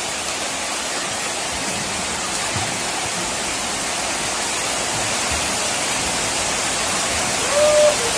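Heavy rain pouring steadily onto corrugated sheet roofs and floodwater, an even hiss. A person calls out briefly near the end.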